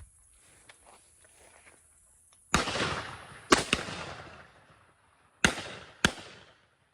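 Shotguns firing at doves: five loud blasts, the first about two and a half seconds in, two close together a second later, then two more near the end, each trailing off in a long echo.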